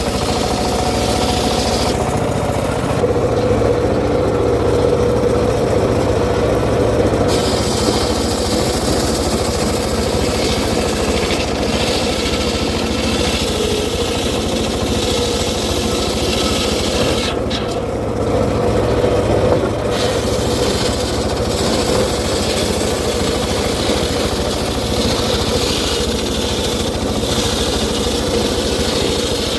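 Engine-driven wood saw running steadily without a break.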